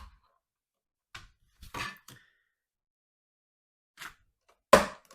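Plastic parts of a Shark vacuum's housing being handled: a few short knocks and clicks, with the loudest clunk near the end, as the housing is worked open to reach the HEPA filter.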